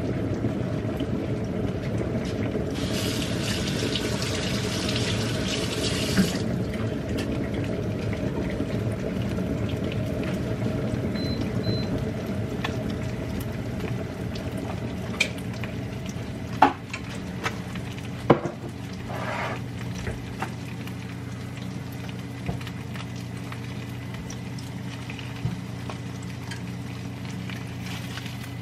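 Kitchen sounds at the stove: a steady low hum throughout, easing off past the middle. A tap runs for about three seconds near the start. A silicone spatula knocks sharply twice against a nonstick frying pan past the middle.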